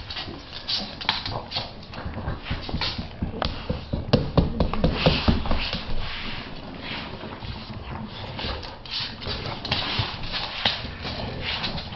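English Bulldog puppy and a young English Bulldog playing rough on a wooden floor: paws and claws scuffling and rubbing on the wood, with many short knocks as they tussle over a plush toy. The scuffling is loudest about four to six seconds in.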